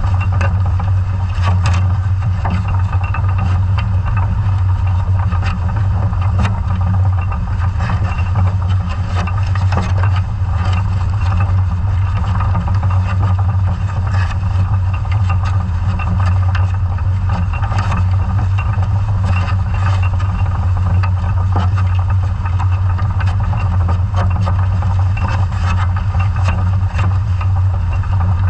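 Steady low drone of the towing vessel's engine and propeller, carried through the water and heard underwater through the housing of a camera mounted on a sea scallop survey dredge under tow. Scattered clicks and knocks from the dredge's steel frame and gear sound over it.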